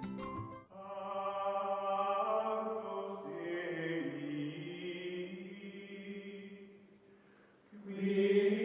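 Background music of long, held choir-like chanting tones that come in about a second in, fade away near seven seconds, then swell again near the end.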